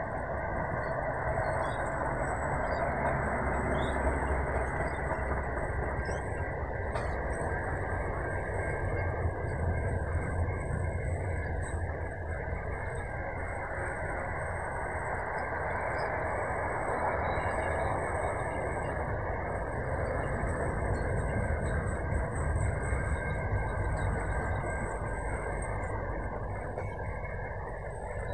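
Double-stacked container wagons of a long freight train rolling steadily past, a continuous rumble of wheels on rail.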